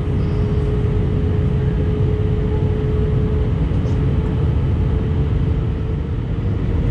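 Airbus A319 cabin noise at low altitude on the approach: the steady low rumble of the jet engines and airflow, with a steady hum over it that fades about halfway through.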